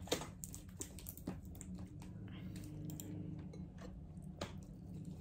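Small irregular clicks and taps of eating by hand: fingers tearing meat off a bone in a glass dish, with some chewing. A faint steady low hum runs underneath.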